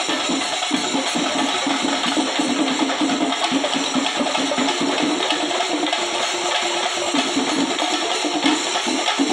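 An ensemble of chenda drums beaten together with sticks in a fast, dense rhythm, with a steady bright wash above the drumbeats.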